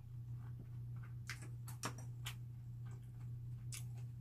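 A person eating bread: scattered small clicks and crackles of mouth and bread, bunched together a little over a second in and again near the end, over a steady low hum.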